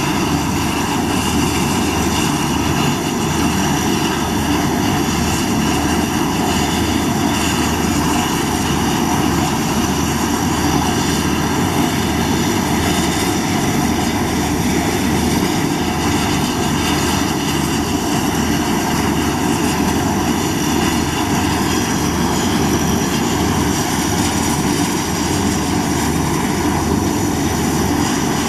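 Convair 580's Allison 501 turboprop engine running steadily, its propeller turning, a steady high whine over a low drone.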